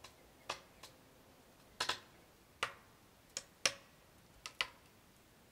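Firewood crackling in a wood-burning stove: about nine sharp, irregularly spaced pops and snaps, some coming in quick pairs.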